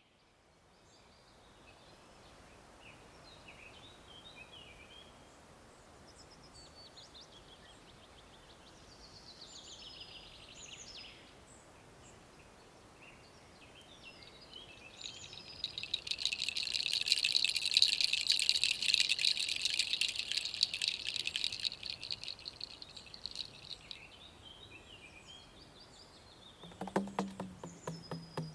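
Small birds chirping and singing, with a loud, fast trill lasting several seconds about halfway through. Near the end a low pitched sound with quick pulses sets in.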